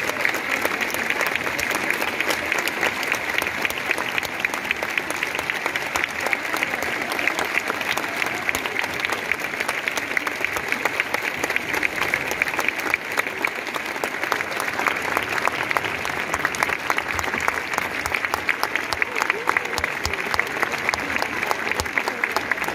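Large audience applauding, many hands clapping at once in a dense, steady patter.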